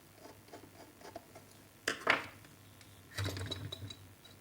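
Small clicks and taps of hand tools and wire on the power plug's terminals as the earth wire is fastened to the earthing point, with one louder sharp clack about two seconds in.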